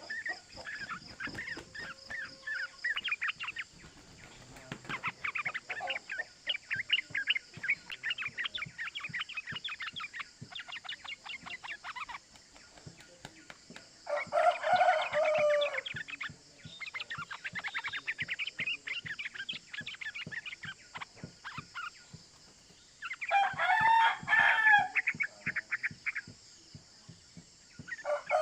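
Yellow-vented bulbuls chattering in long, rapid runs of short notes. Two louder, bubbly song phrases come about halfway through and again about three-quarters through.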